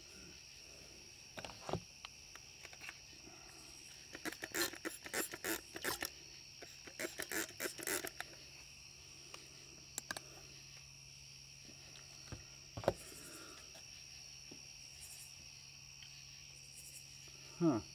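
Hand spray bottle squirting in two quick runs of pumps, rinsing sodium metabisulfite off a stirring spoon into the solution, followed later by a single sharp click. A steady high-pitched whine runs underneath.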